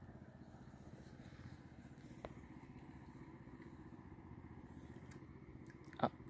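Steady low drone of a distant engine, with a faint click about two seconds in and a sharp knock near the end.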